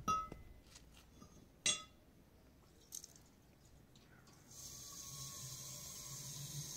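A metal kettle clinks twice against the tap, ringing briefly. About four and a half seconds in, the tap starts and water runs steadily into the kettle.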